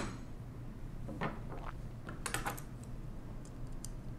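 Faint scattered clicks and taps of small metal tools being handled: a digital caliper picked up and its sliding jaw closed on a small machine screw. The clicks come in a few small clusters, the busiest about two seconds in.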